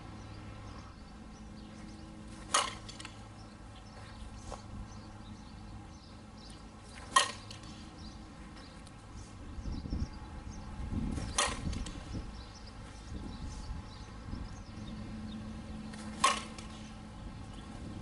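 Softball bat hitting pitched balls four times, a sharp crack every four to five seconds, over a faint steady outdoor background.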